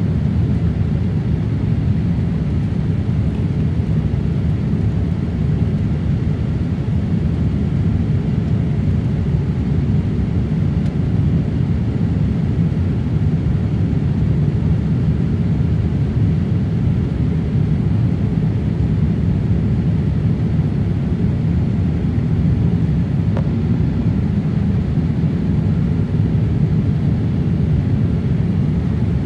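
Jet airliner cabin noise in flight: a steady low rumble of the engines and rushing air, heard through the cabin.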